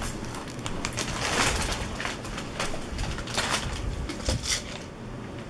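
Potato chips being crunched and chewed, in irregular crackly bites.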